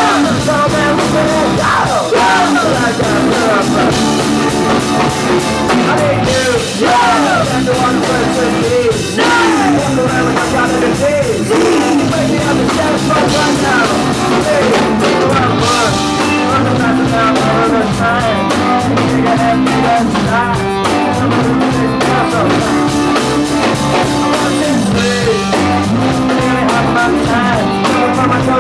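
Rock band playing live and loud, a drum kit driving the beat under the instruments.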